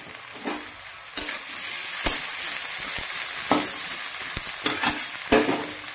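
Sliced onions sizzling in hot ghee in a metal kadhai. The sizzle grows louder about a second in, and a spatula knocks and scrapes against the pan several times as the onions are stirred.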